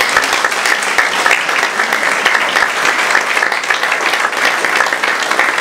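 Audience applauding loudly, many hands clapping in a dense, steady patter.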